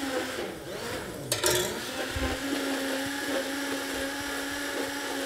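Handheld immersion blender switching on about a second and a half in, then running with a steady hum. Its blade is held at the surface of the liquid to whip air into it for a foam.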